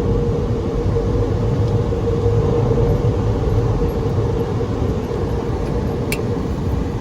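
Steady road and engine rumble of a car heard from inside the moving cabin, with a constant hum and a single sharp click about six seconds in.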